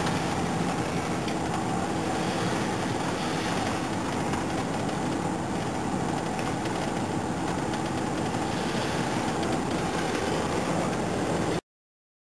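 Steady engine and road noise inside a moving patrol car, with a low even hum. It cuts off abruptly to silence near the end.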